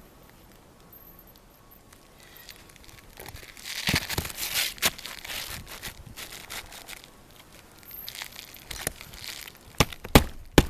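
Asphalt roofing shingles being handled and laid in place: crinkling, scraping and tearing noises, busiest in the middle, then three sharp knocks near the end.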